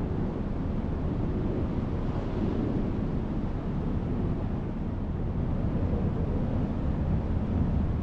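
Strong, steady wind rushing across the microphone with a low, gusting rumble.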